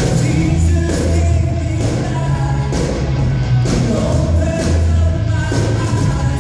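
Live worship band playing a rock-style song: electric guitars, bass and drum kit with singers.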